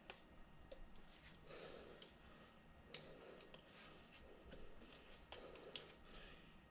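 Near silence with faint scattered clicks and soft rustling, as of small handling noises.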